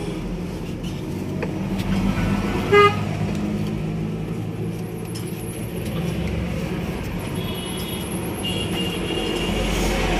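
Steady traffic rumble with one short, loud vehicle horn toot about three seconds in, and fainter high-pitched horn-like tones later on.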